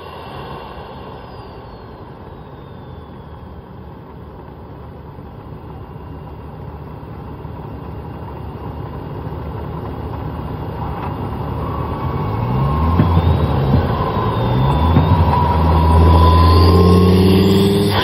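Volvo S60R's turbocharged five-cylinder engine heard from inside the engine bay. It runs lightly for the first half, then pulls harder and louder from about ten seconds in, with engine pitch climbing and a thin turbo whistle rising alongside. The sound falls away sharply just before the end as the throttle is released.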